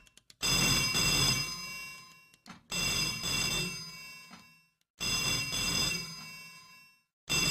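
Old candlestick telephone's bell ringing, three rings about two seconds apart, each starting loud and fading out, with a fourth ring starting near the end.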